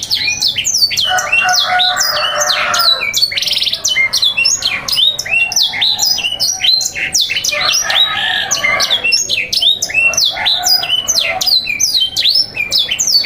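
Domestic canaries singing in a dense, continuous song of quick falling whistle notes overlapped with buzzy, rattling trills.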